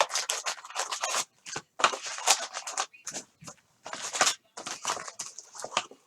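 Plastic wrapping being crinkled and torn as a box of trading card packs is opened, in a close run of irregular crackles and rustles.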